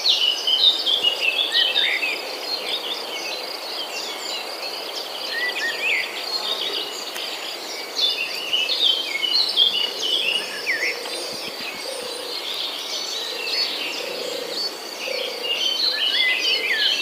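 Many small birds chirping and singing over one another in quick, short calls, over a steady high buzzing trill.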